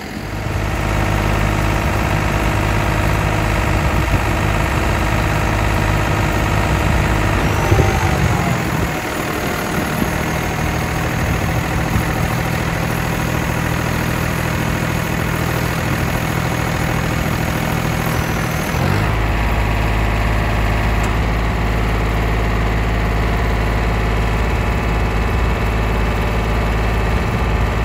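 Truck's diesel engine running steadily to power a Hiab 377 loader crane's hydraulics, getting louder about a second in. A high thin whine joins from about eight seconds in and stops near nineteen seconds, while the crane's boom is being moved.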